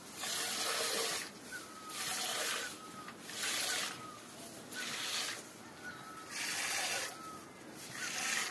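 Hand milking of a water buffalo: streams of milk squirting into an aluminium pail, a hissing stroke about every second and a half.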